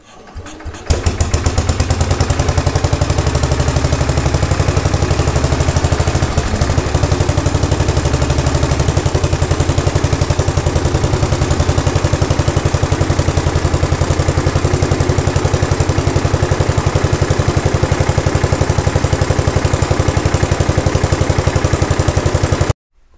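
Freshly rebuilt Briggs and Stratton model 23A single-cylinder engine comes up to speed within the first second, then idles steadily with a rapid, even firing beat while it breaks in, not yet tuned. The sound cuts off suddenly near the end.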